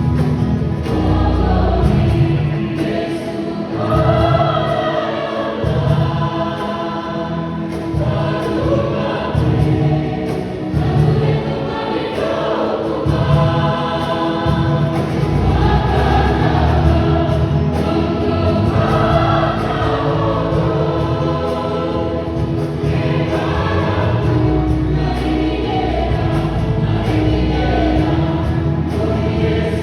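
A choir singing, several voices together over a sustained low bass.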